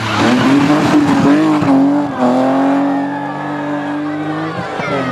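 BMW E36 3 Series rally car's engine under hard throttle as it passes and pulls away. The pitch wavers for the first two seconds, dips briefly about two seconds in, climbs steadily, then drops as the driver lifts near the end.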